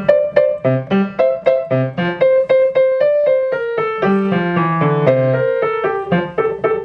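Piano played at a steady beginner's tempo, a short melodic passage with repeated notes played as connected as the repeats allow, over lower notes in the left hand.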